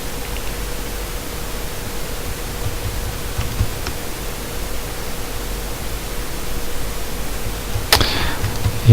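Steady hiss with a faint, even hum, a few faint ticks, and a sharp click about eight seconds in.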